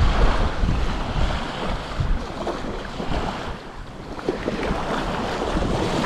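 Strong gusty wind buffeting the microphone, with waves washing on the shore behind it.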